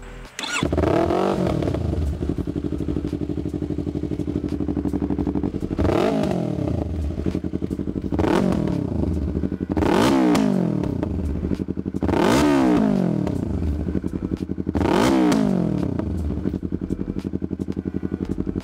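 Yamaha R3's 321 cc parallel-twin engine breathing through a full Akrapovič Racing Line exhaust, idling and blipped six times, each rev rising sharply and dropping straight back to idle. A loud, deep exhaust note.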